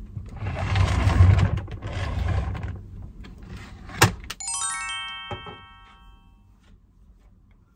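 A loud stretch of noise for the first three seconds. Then a sharp click about four seconds in, followed by a quick run of bright chime notes stepping down in pitch that ring out for about two seconds, like an editing sound effect.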